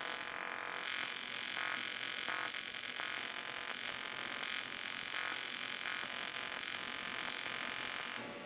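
AC TIG welding arc on aluminium buzzing steadily, a harsh electric buzz with a flickering pulse running through it.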